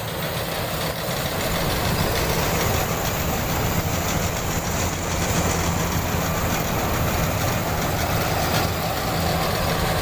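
Rice combine harvester's engine running steadily as the machine harvests.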